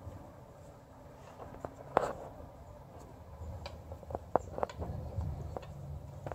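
Small clicks and taps of metal parts being handled as a bolt is started by hand into the engine adapter plate, with one sharper click about two seconds in and a run of lighter ticks after it.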